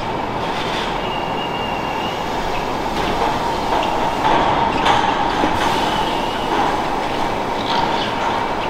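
Steady machinery noise of a dairy milking parlor as Holstein cows file into the stalls, with a brief high squeal about a second in and a few light knocks.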